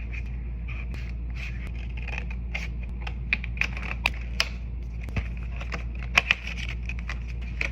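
Blind-box packaging handled and opened by hand: irregular sharp clicks and crinkling scrapes, the loudest pair about six seconds in, over a steady background hum.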